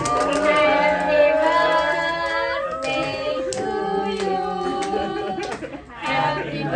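A small group of people singing a birthday song together, with some hand clapping. The singing dips briefly about six seconds in.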